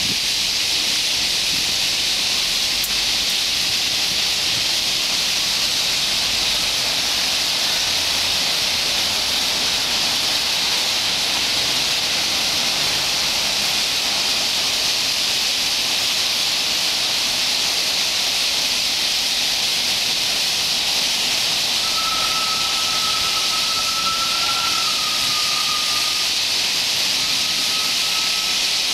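Massed chatter of a large roost of white-cheeked starlings in street trees, thousands of calls merging into a steady, even hiss. A thin, steady whistling tone joins it about three-quarters of the way through.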